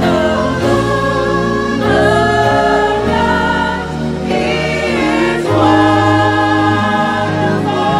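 Gospel choir singing sustained chords over a live band with a steady bass, the sopranos carrying the top line in a call-and-response "hallelujah" between the choir's sections.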